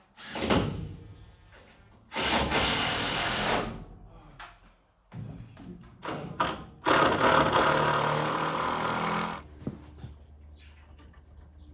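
Power tool working timber framing wood in several runs: a short burst at the start, a run of about a second and a half, a few short bursts, then the longest run of about two and a half seconds.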